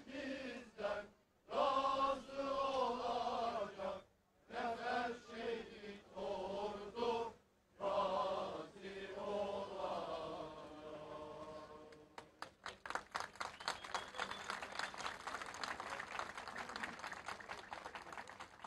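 A group of men from an Ottoman-style mehter band chanting in unison, in drawn-out phrases with short breaks. Applause starts about twelve seconds in and continues.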